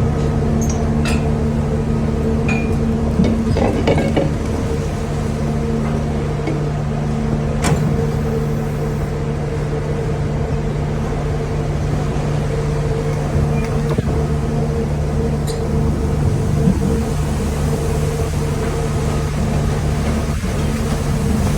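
Steady hum of a fishing vessel's engine and machinery, with a few short knocks and clicks in the first several seconds.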